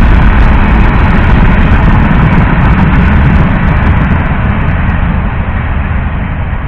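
Freight cars rolling past on the rails, a steady heavy rumble of wheels on track that begins to fade about four seconds in as the last cars go by.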